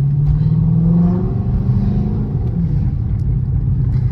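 Car engine accelerating, its pitch climbing through the first two seconds, then dropping suddenly about two and a half seconds in as the transmission shifts up, and running steady after.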